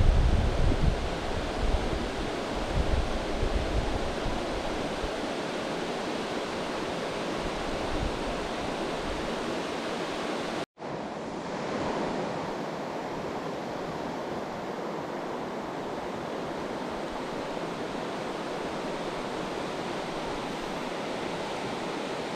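Steady rushing of a mountain creek's flowing water, an even hiss, with the sound cutting out for an instant about halfway through.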